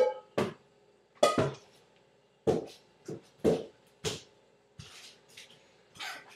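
A ball served off a frying pan, then a string of about nine irregular sharp knocks and clatters as it strikes and bounces around a small kitchen.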